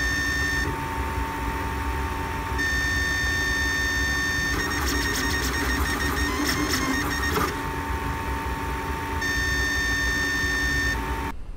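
LulzBot Mini 3D printer running a print: its stepper motors hum in steady tones that shift pitch every couple of seconds as the head changes moves. A rougher stretch with quick clicks comes in the middle, and the sound cuts off abruptly near the end.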